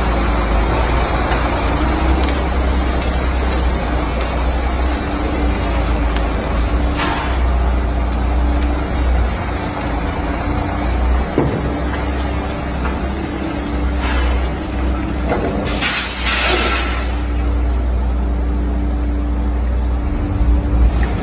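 A heavy truck running with a steady low rumble, broken by a few short air-brake hisses about seven seconds in, about fourteen seconds in, and a longer one a little after.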